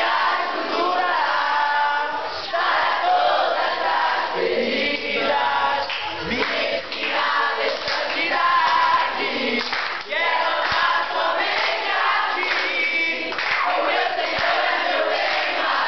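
A classroom group of teenage students singing a song together, with a man's voice singing close to the microphone.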